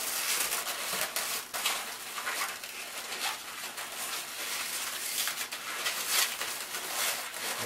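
Inflated 260 latex twisting balloon squeaking and rubbing in the hands as it is twisted into pinch twists: a busy run of short, uneven squeaks and scrapes.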